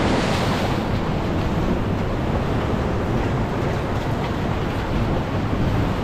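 Ocean surf washing over a rock shelf, a steady rushing of water with wind buffeting the microphone.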